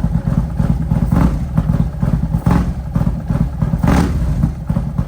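Harley-Davidson Milwaukee-Eight V-twin with a Thunderheader exhaust and a cam tune, idling with a choppy pulse and revved in three short throttle blips, about a second and a half apart.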